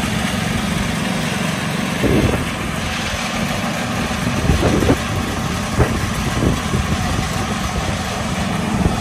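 The 11 hp Briggs & Stratton engine of a John Deere 111 riding mower running steadily as the mower drives along, with a few short thuds.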